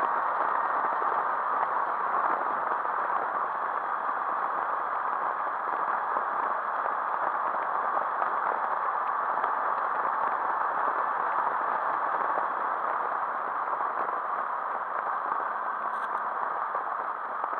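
Steady rushing wind and road noise from a motorcycle cruising at speed, picked up by a camera mounted on the bike.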